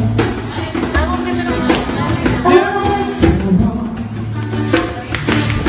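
A band playing a rock song, with a singer over guitar and drums keeping a steady beat.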